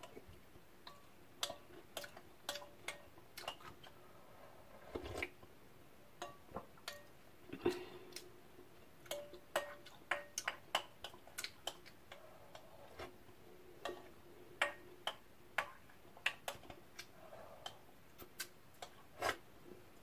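Chopsticks and a spoon clicking and scraping lightly and irregularly against a bowl while the last of the ramen is eaten, some clicks with a short ring.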